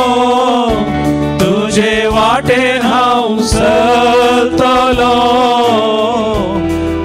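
Slow Konkani devotional hymn being sung with held instrumental notes underneath, the voice gliding between long sustained notes.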